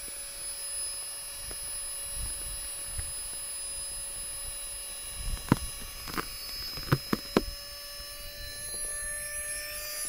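Flextail battery-powered air pump running with a steady whine as it inflates an Exped Synmat Hyperlite sleeping pad. A few sharp clicks come a little past halfway, and the pitch creeps up slightly near the end.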